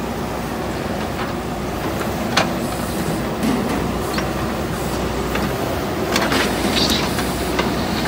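JCB 3DX backhoe loader's diesel engine running steadily under load while the backhoe arm and bucket work, with several sharp knocks and clanks from the bucket and arm. The loudest knock comes about two and a half seconds in, and another cluster comes around six to seven seconds in.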